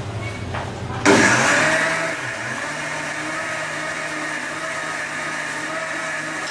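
Electric mixer grinder with a stainless steel jar switching on about a second in and running steadily, loudest in its first second before settling to an even motor whine and grinding noise.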